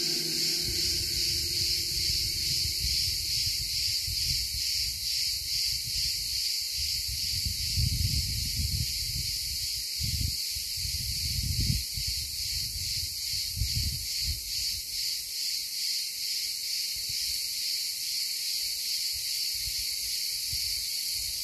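Insects chirring steadily in a high, finely pulsing drone, with a few low rumbles about midway.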